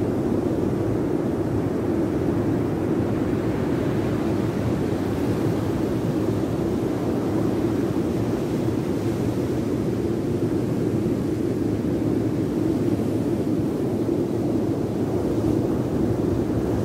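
Steady rushing noise of heavy ocean surf breaking on a rocky beach, mixed with wind, even and unbroken throughout.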